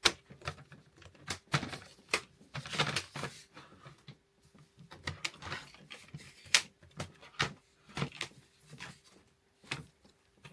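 Plastic storage basket being put together by hand: irregular clicks, snaps and knocks as the plastic panels are pushed into place, with a brief rustle about three seconds in.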